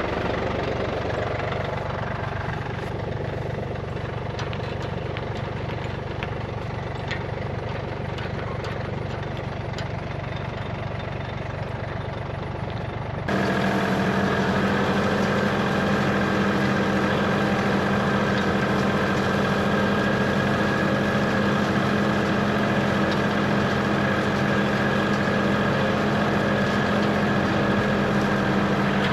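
Tractor engine running steadily under a light working load. About 13 seconds in the sound changes abruptly to a louder, steadier hum.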